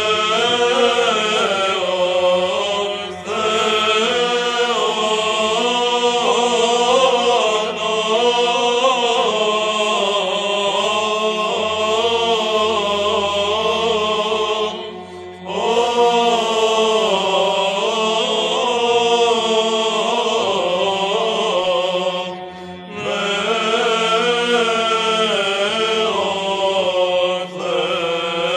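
Orthodox monks chanting in Byzantine style: a slow, melismatic melody of male voices over a steady held drone note, in long phrases broken by brief pauses about 3, 15 and 23 seconds in.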